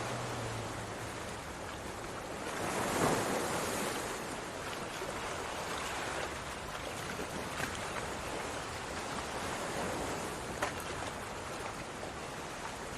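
Battered naan pakora deep-frying in hot oil, sizzling steadily, louder for a moment about three seconds in.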